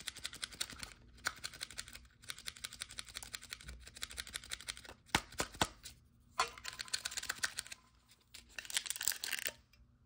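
Foil Pokémon booster-pack wrappers crinkling and crackling as they are handled, in several stretches with short pauses between. There are a few sharp clicks about five seconds in, and near the end a pack is torn open.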